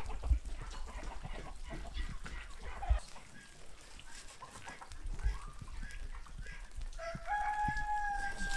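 Chickens clucking, then a rooster crowing one long call starting about seven seconds in. A few dull low thumps are heard in the first half.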